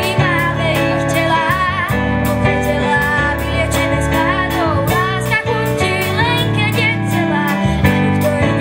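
A young girl sings a song into a microphone with a live school band behind her: guitar, drums and a steady bass line, with cymbal hits keeping a regular beat.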